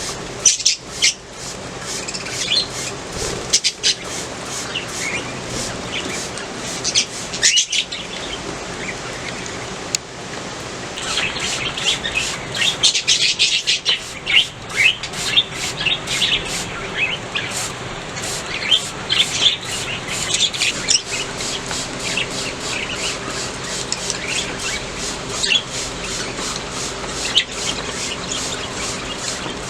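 A flock of budgerigars chirping and chattering continuously in rapid, overlapping calls. The chatter grows busiest about a third of the way through.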